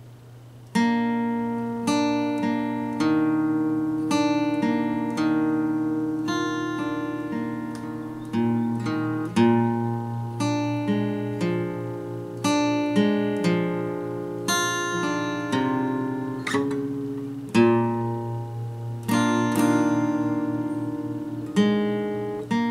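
Acoustic guitar played solo in an improvised instrumental: picked notes and chords ring out and fade, one after another, over a low note held underneath. The playing starts about a second in.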